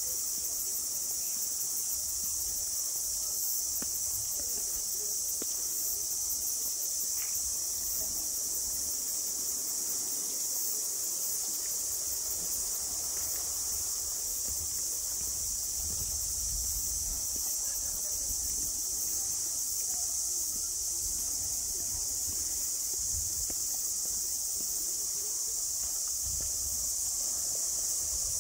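A dense, steady, high-pitched chorus of insects shrilling without pause, with a faint low rumble underneath.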